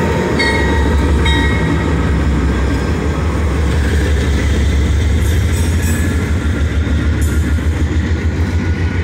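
Two GE C44-9W (Dash 9) diesel-electric locomotives, each with a V16 diesel, passing close by at low speed: a loud, steady deep engine rumble with wheels rolling on the rails. A thin high whine runs through about the first second and a half.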